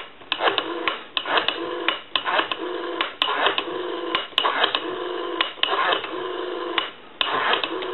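Rotary dial of a Western Electric 302 telephone being turned and released digit after digit, clicking repeatedly as it returns, with a low steady tone on the line between the short breaks.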